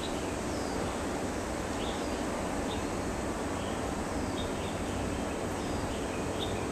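Steady outdoor background noise with a low rumble, and small birds giving short high chirps and little falling whistles about once a second.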